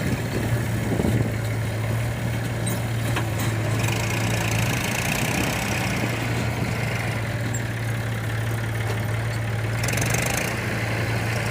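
Diesel engine idling steadily with a constant low hum, and a higher hiss that comes and goes twice.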